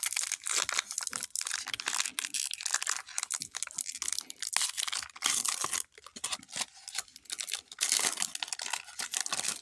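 Crinkly foil wrapper of a Pokémon TCG booster pack being crumpled and torn open, a dense crackle of small sharp clicks with short pauses.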